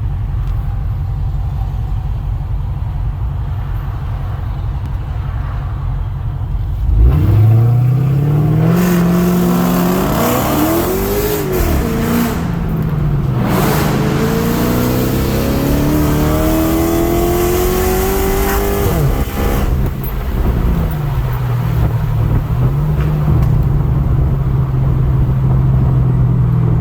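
Car engine idling with a low rumble, then revved twice, the pitch climbing and falling back each time (the second a longer, slower climb) before it settles back to idle. It is being run to listen for a suspected exhaust leak.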